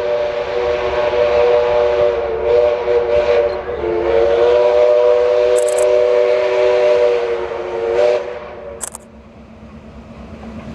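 Steam whistle on steam locomotive 5917, an NSWGR 59 class 2-8-2, blowing two long blasts of several notes at once with a hiss of steam: a brief break about 4 s in, and the whistle cuts off about 9 s in.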